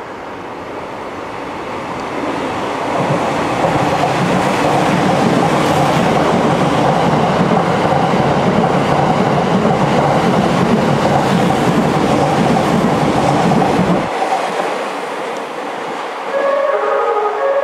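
E001 series TRAIN SUITE Shiki-shima running through the station: the noise of wheels on rail builds as it approaches, stays loud for about ten seconds while the cars pass, and drops off suddenly once the last car has gone by. Near the end, its music horn plays a short melody of stepped notes.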